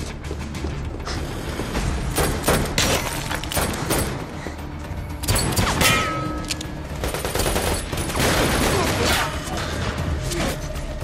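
Action-film soundtrack: a driving music score with a steady low pulse, under a run of sharp hits, crashes and rapid bangs from the chase. The hits come thickest about two, six and eight seconds in.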